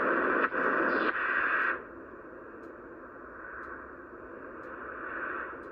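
Siemens E-310 valve marine receiver hissing with shortwave static from its speaker while tuned near 5 MHz for WWV, with no clear signal. Just under two seconds in, the hiss drops sharply in level and turns duller.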